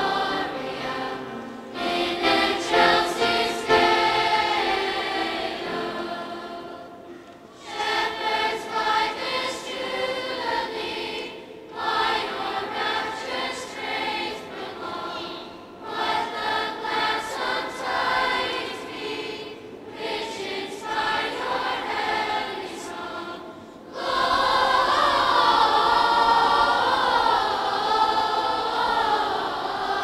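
Children's school choir singing in phrases with short breaks between them, the last phrase louder.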